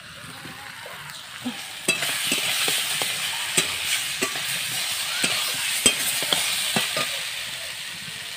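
Potatoes and onion in spice paste sizzling as they fry in an aluminium wok, with a metal spatula clinking and scraping against the pan as they are stirred. The sizzle grows louder about two seconds in. This is the dry-frying (kosha) stage of the masala, nearly done before water is added.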